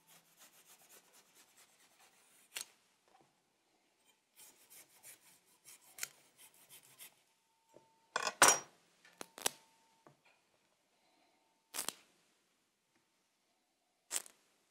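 Chef's knife cutting through the stem of a bunch of small bananas on a plastic cutting board: soft scrapes and small clicks, broken by a few sharp knocks of the blade on the board. The loudest knock comes about eight seconds in.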